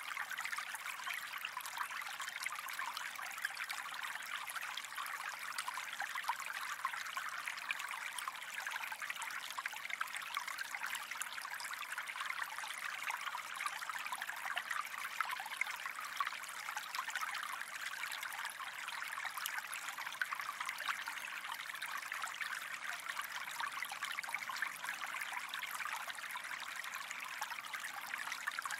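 Gentle stream running, a steady even rush of flowing water that does not change.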